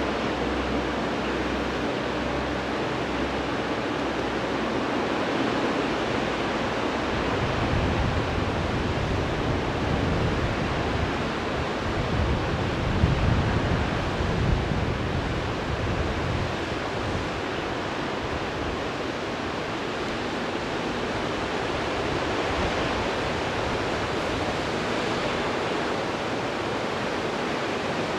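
Steady rushing of a glacier-fed mountain torrent, the young Rhone tumbling over rocks, with a deeper rumble swelling through the middle.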